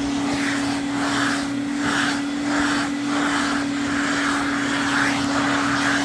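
Vacuum cleaner running steadily with a pet-grooming brush attachment being drawn through a dog's fur. A steady motor hum sits under a rushing airflow that swells and fades about every half-second with the brush strokes.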